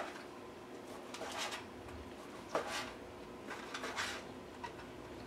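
Knife slicing through cooked venison steak on a cutting board: a few separate soft slicing strokes, each a short scrape, with a light tap of the blade near the end.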